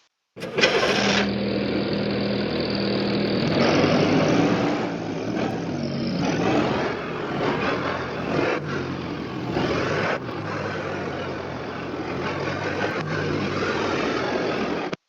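A car engine starts and runs, its sound shifting several times as it goes. It begins and cuts off abruptly.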